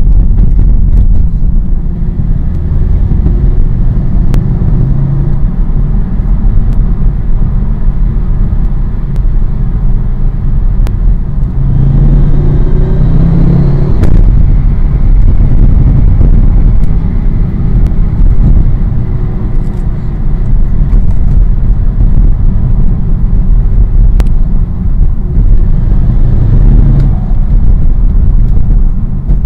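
Car engine and drivetrain running while driving, heard from inside the cabin as a steady low rumble, with the engine pitch rising under acceleration about twelve seconds in and again near the end.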